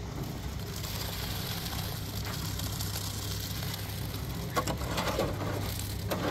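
A metal wheelbarrow of wet concrete is tipped up and scraped out onto a slab, with a knock about halfway through and rough scraping near the end, over a steady low machine hum.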